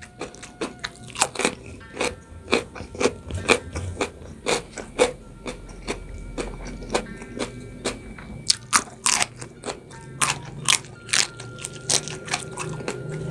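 Close-miked chewing of raw young jengkol beans and rice, with crisp crunches about twice a second.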